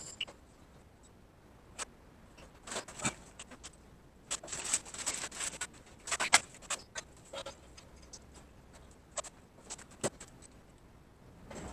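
Scattered clicks, light metal knocks and rustling from handling a braided stainless-steel propane hose and its fittings while it is routed over a metal cart and connected to a propane tank valve. The handling noise is densest about three to six seconds in.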